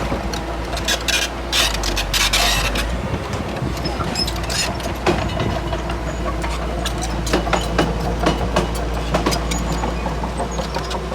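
Komatsu D31P crawler bulldozer's diesel engine running steadily, with the steel tracks clanking and clattering irregularly as it moves.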